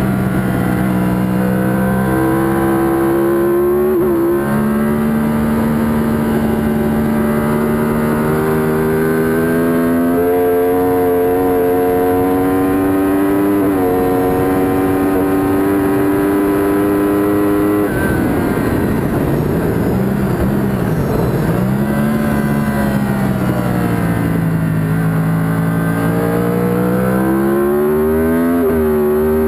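Yamaha R1 inline-four race engine heard onboard, pulling hard with its pitch climbing for most of the run down the straight. About eighteen seconds in the note cuts off suddenly and drops, wavering through downshifts as the bike slows for a corner, then climbs again near the end as it accelerates out.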